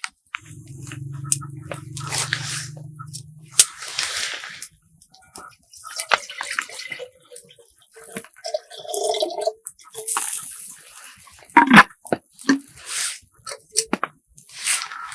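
Wet handling sounds: squishing, dripping and scattered clicks and knocks. A low steady buzz runs for about three seconds near the start.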